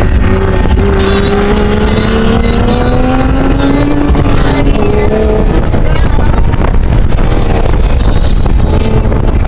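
2000 Toyota Camry Solara's engine heard from inside the cabin under hard acceleration, its pitch climbing steadily for about four and a half seconds, then dropping about halfway through and running on steadily. A loud rush of road and wind noise runs under it.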